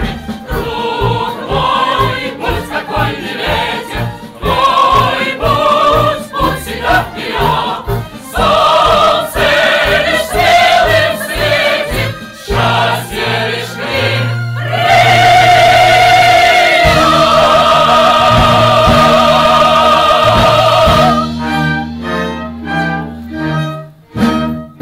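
Choir singing an operetta finale with instrumental accompaniment. Past the middle the voices hold one long note with vibrato, then short accompanying chords follow near the end.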